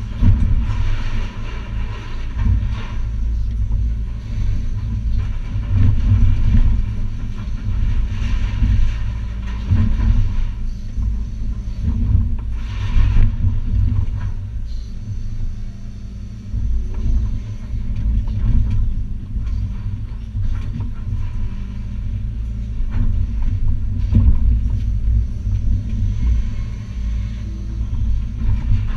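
Hitachi ZX280 excavator's diesel engine running steadily under load, heard from inside the cab. Over it come bursts of crashing and scraping as the bucket breaks up and drags demolition rubble and sheet metal, the loudest about a second in and again a few times later.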